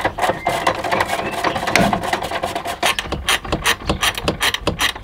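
Hand socket ratchet clicking in quick runs as it winds down the bolt of the battery hold-down clamp. The clicks grow sharper and more regular in the second half.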